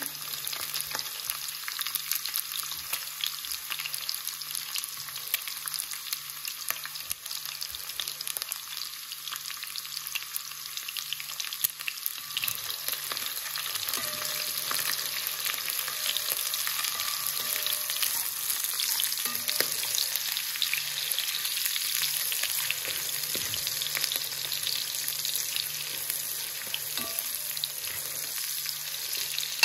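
Sliced onions and green bell pepper sizzling in hot oil with pieces of beef in a pot, stirred now and then with a spoon. The sizzling is a steady crackle that grows somewhat louder about halfway through.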